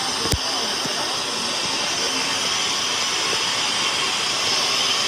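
Steam locomotive 45596, an LMS Jubilee class 4-6-0, standing at the platform with steam hissing steadily. There is one sharp knock about a third of a second in.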